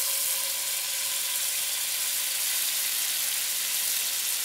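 Flat iron steak searing in hot oil in a pan, with a steady sizzle. This constant sizzle is the sound wanted through the sear, showing the pan and oil are hot enough.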